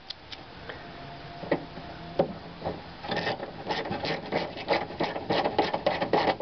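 Glass-mounting bolts being run into the window regulator bracket with a small socket ratchet: a few scattered metal clicks, then from about halfway a fast, steady run of ratcheting clicks as the bolt is tightened.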